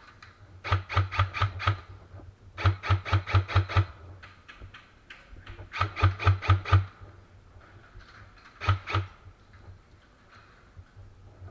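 An airsoft gun firing in quick strings of shots, about five a second: three strings of six or seven shots, then a short pair near the end.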